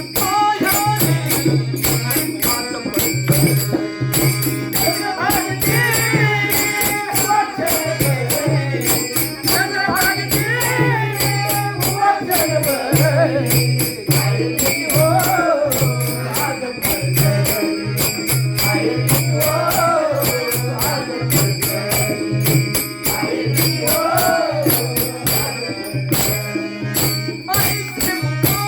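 Instrumental interlude of a Marathi devotional song: fast, even percussion strokes over a pulsing low bass, with a melodic line that rises and falls in short repeated phrases.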